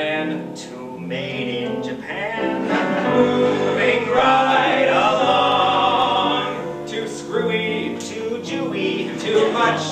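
Two men singing a musical-theatre duet with piano accompaniment.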